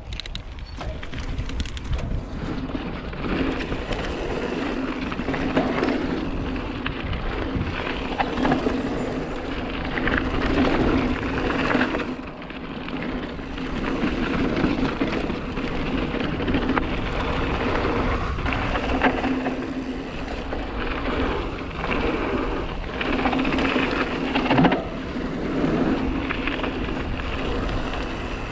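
Hardtail mountain bike rolling fast down a dirt flow trail: knobbly tyres running over packed dirt and loose stones, swelling and fading with speed through the berms, with scattered knocks and rattles over bumps and wind rushing on the microphone.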